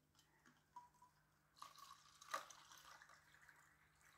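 Liquid poured from a glass bottle into a plastic cup: a faint trickle that starts about one and a half seconds in, with one small click partway through.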